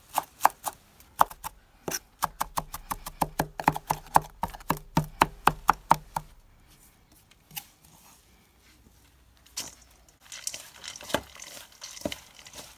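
Kitchen knife chopping parsley on a wooden cutting board, quick even strokes about four to five a second, stopping about six seconds in. A few single knocks follow, then near the end chopped herbs and garlic rustle as they are mixed by hand in a stainless steel bowl.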